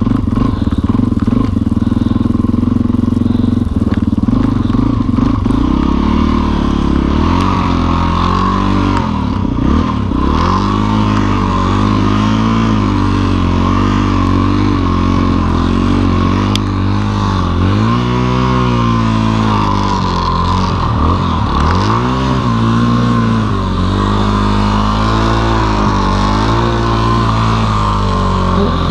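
Yamaha XT dual-sport motorcycle's single-cylinder engine running under load through deep snow, its pitch swelling and dropping again and again as the throttle is opened and eased.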